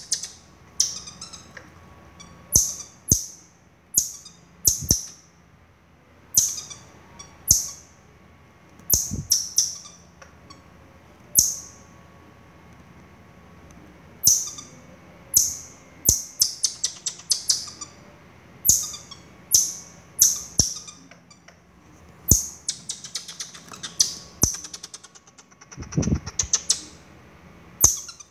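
Baby marmoset giving short, high-pitched, squeaky calls about once a second, some running together into quick chattering trills. There is a dull bump near the end.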